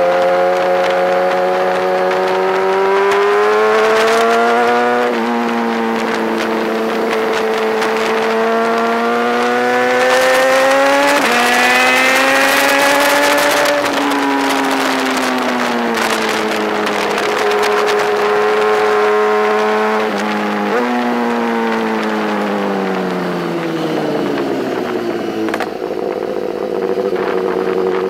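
BMW S1000RR's inline-four engine at racing revs, pulling hard through the gears: pitch climbs, drops sharply at two upshifts, then falls away as the bike slows, with short upward steps at the downshifts, before settling near the end.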